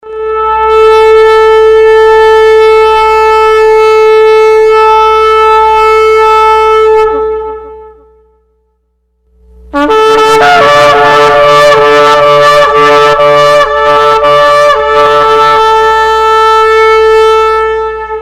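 Ram's horn shofar blown in two blasts. The first is one long, steady held note of about seven seconds that drops in pitch as it ends. After a short pause the second starts with a quick run of short broken notes and then settles into a long held note.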